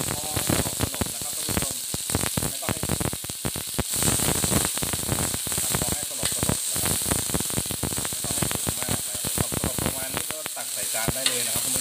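Bean sprouts sizzling and crackling in a hot pan as a spatula stirs them, with many quick clicks and pops throughout.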